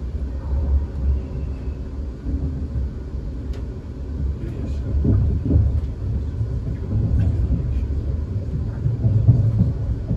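Low rumble of a South Western Railway Class 450 electric multiple unit running along the track, heard from inside the carriage, with a few faint clicks over it.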